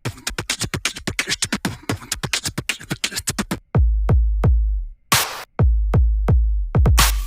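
Electronic background music: a fast ticking drum-machine pattern, then deep sustained bass notes under sharp hits and a rushing sweep.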